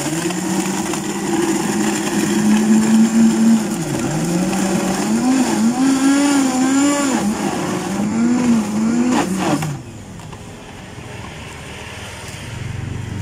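Electric drink blender running under load, crushing ice for a blended drink. It starts abruptly and runs for almost ten seconds, its motor pitch dipping and rising repeatedly as the load shifts, then stops suddenly.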